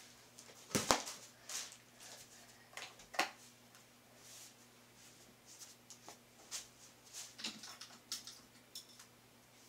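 Scattered clicks, taps and light knocks of small objects being handled, with a louder knock just under a second in and a run of quick small clicks in the second half, over a faint steady hum.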